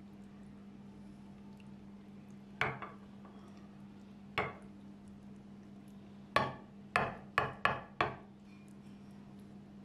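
Glass mixing bowl and whisk knocking as sauce is poured from the bowl: two single knocks, then a quick run of five near the end, over a faint steady low hum.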